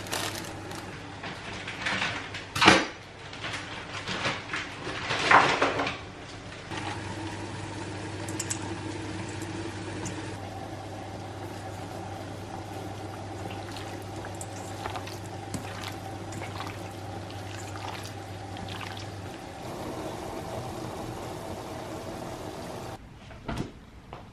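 Raw turkey pieces being seasoned by hand in a stainless steel bowl: crinkling and squeezing of a bagged lemon over the meat in the first few seconds, then soft wet handling as the meat is mixed, over a steady low kitchen hum.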